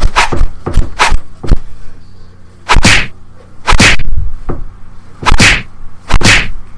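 Punch and slap sound effects for a beating: about a dozen loud whacks, some in quick pairs, with short whooshes.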